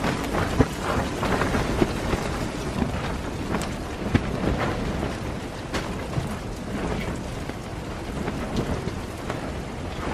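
Strong wind buffeting and flapping a canvas tent, heard from inside: a steady low rumble with a dense crackle of fabric snapping.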